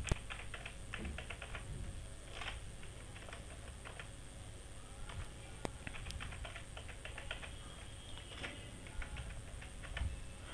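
Computer keyboard keys clicking faintly in quick runs as a password is typed into two fields, with one sharper click about halfway.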